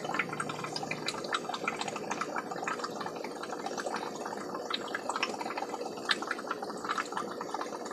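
Steady bubbling and gurgling of aquarium water, a dense patter of small pops over a faint steady hum.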